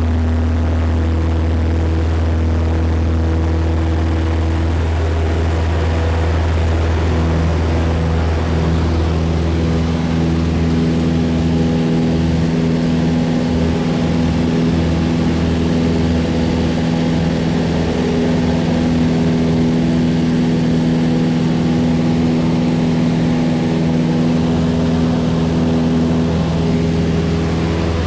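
Single-engine light aircraft's propeller engine running steadily at high power during the takeoff and initial climb, heard from inside the cockpit. About seven seconds in, a further engine tone joins the drone and holds.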